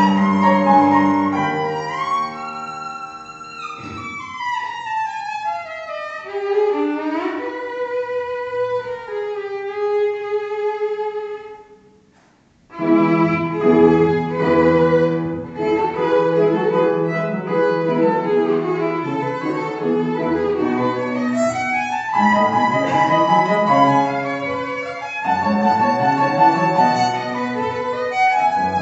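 Violin playing unaccompanied. A slow phrase with sliding notes breaks off in a short pause about twelve seconds in, then resumes as a busier passage with several notes sounding together.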